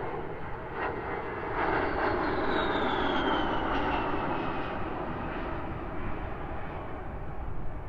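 Military aircraft flying past, its engine roar swelling a second or two in and then easing, with a high whine that falls in pitch as it passes.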